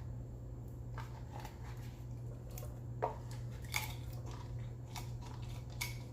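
Shredded cheese being handled and scraped into a saucepan: a series of small crunchy clicks and taps, about seven of them, over a steady low hum.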